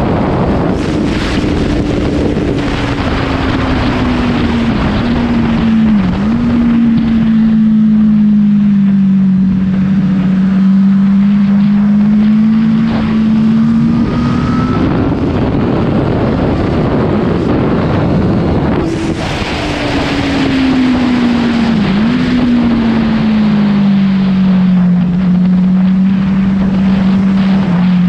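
Honda CBR1000 inline-four engine running under way, with heavy wind rush over the microphone. The engine note sinks slowly, climbs a little around halfway, then jumps higher about two-thirds of the way in and sinks again.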